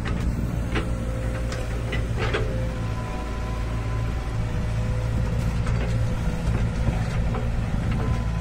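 Hydraulic excavator's diesel engine running steadily, with a thin steady whine over it and a few light knocks in the first half.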